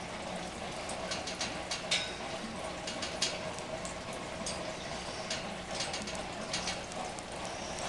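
Aquarium water and filter running, a steady hiss and hum, with scattered small clicks and splashes at irregular intervals.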